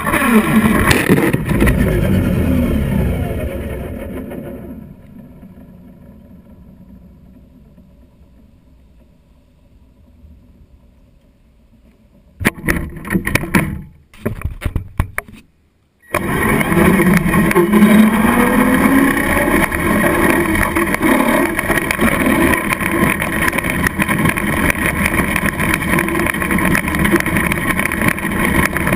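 Traxxas Slash electric RC truck running over grit-covered asphalt: motor and gear whine with tyre noise, falling in pitch as it slows to a stop in the first few seconds. After a quiet stretch, a few seconds of knocks and rubbing as a finger handles the camera mounted on the truck, then the truck pulls away with a rising whine and runs steadily.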